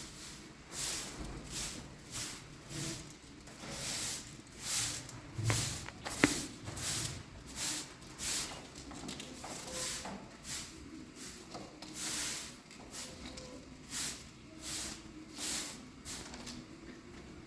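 Rhythmic scraping or swishing strokes, about one and a half to two a second, with one sharp click about six seconds in.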